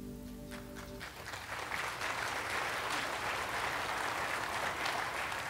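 A held chord of accompaniment music ends about a second in, and the congregation breaks into applause that builds and keeps going.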